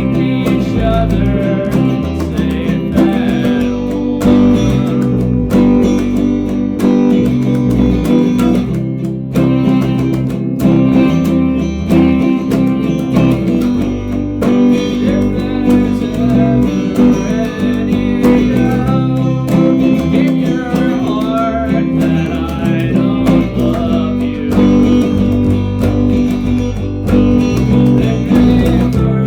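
A band playing a song together: strummed and picked guitars over bass guitar.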